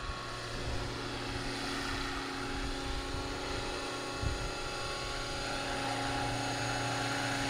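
Scale RC helicopter flying low and settling toward a hover: a steady whine from its rotors and drive, made of several fixed tones, growing a little louder near the end as it comes closer. A fluttering low rumble of wind on the microphone runs underneath.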